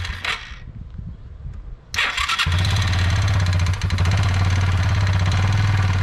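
Kawasaki Bayou 220 ATV's single-cylinder four-stroke engine being started on the electric starter. A first attempt dies away within the first second; about two seconds in it turns over again, catches, and runs steadily.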